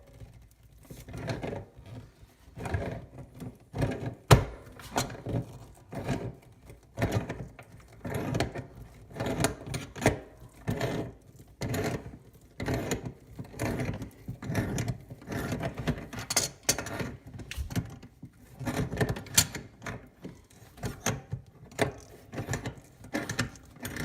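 Channel-lock pliers working the mounting nut of an old bathroom sink drain loose, metal clicking and scraping in repeated short strokes, roughly one or two a second.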